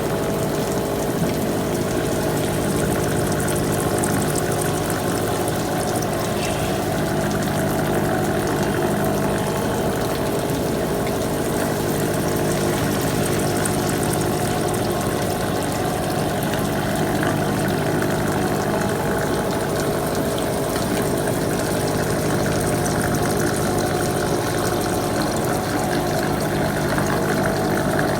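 Machine-shop machinery running steadily: a constant mechanical hum with several steady tones over a hiss, without pause.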